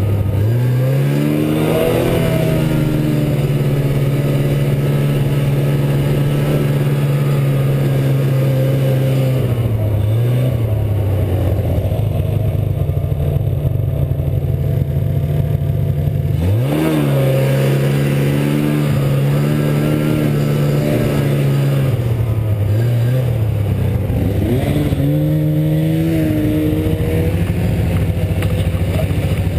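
Snowmobile engine under way, climbing in pitch as it accelerates, holding a steady drone, easing off around ten seconds in, then revving up sharply again at about seventeen seconds and once more near twenty-five.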